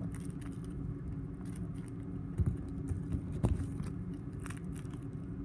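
A homemade simple dimple fidget being pressed, giving a few sparse clicks, the clearest about three and a half seconds in, over a steady low hum.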